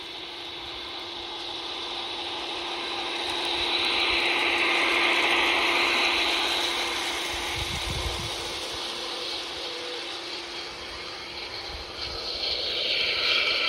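O gauge model diesel-hydraulic locomotives running on garden railway track: a steady motor-and-gear whine with the rolling hiss of wheels on rail, loudest as the first train passes close by. Near the end a quick, even run of clicks sets in as a second locomotive approaches.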